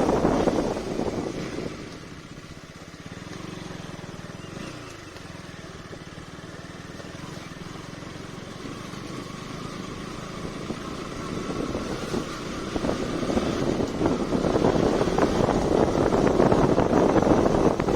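KTM Duke 200's single-cylinder engine under way, with wind buffeting the microphone. The wind dies down within the first couple of seconds, leaving a quieter engine note that shifts in pitch, then wind and engine build steadily again from about twelve seconds in as the bike picks up speed.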